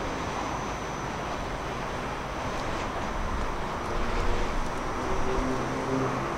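Steady low rumble of railway and traffic noise around the level crossing, with a faint hum coming in about halfway.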